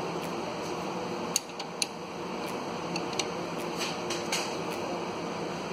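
Metal spanner working a fastener on a rear brake caliper as it is tightened: a few sharp metallic ticks and clicks over a steady background hum.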